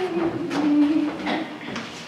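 A person's voice holding one long, low, wavering note that ends about a second and a half in, with a few light knocks and shuffles from the stage.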